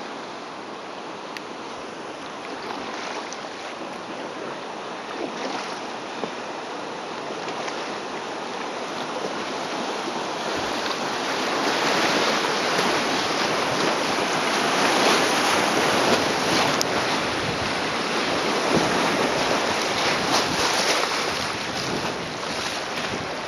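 Rushing whitewater of a river rapid, a steady noise of moving water that grows louder from about a third of the way in.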